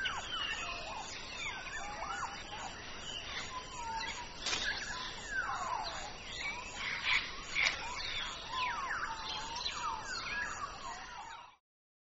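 African grey parrot giving a run of rising and falling whistles, with a few louder, harsher calls in the middle; the sound cuts off near the end.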